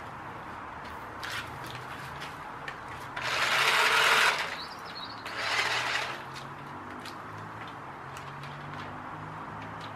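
Small electric motor and gears of a radio-controlled toy boat fitted with styrofoam-ball wheels, whirring steadily as its wheels struggle for grip at the edge of the water. Two louder rushes of noise come about three and five and a half seconds in.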